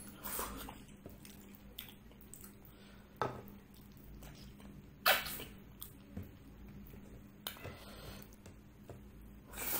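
A person eating panipuri (golgappa) and rice by hand, close-miked: quiet wet chewing with a few sudden bites and mouth sounds, the loudest a little past halfway.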